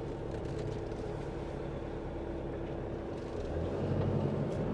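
Camper van's engine running at low speed, heard from inside the cab, with a steady hum. About three and a half seconds in the engine note gets louder as it picks up a little load.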